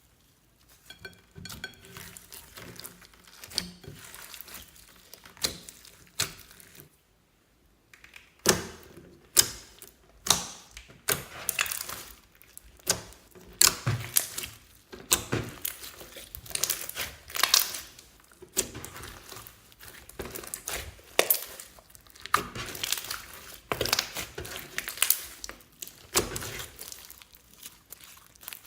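Clear slime mixed with add-ins being squished and stretched by hand, giving sticky crackles and sharp pops. Sparse and fainter at first, a short pause about seven seconds in, then louder, quicker popping.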